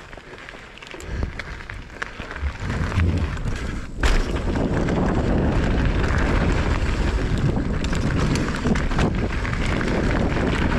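Mountain bike riding down a dirt trail: tyres rolling over dirt and stones with many small clicks and rattles, under heavy wind rumble on the microphone. A sharp thump comes about four seconds in, and the rumble is louder after it.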